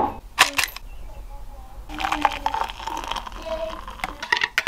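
A ceramic mug knocked down onto a table a few times, then hot water poured from an electric kettle into the mug onto instant coffee granules, splashing steadily from about two seconds in.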